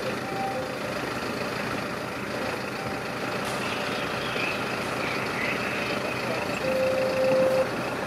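Fire engine's diesel running steadily, with a few short beeps over it and a longer one about a second long near the end.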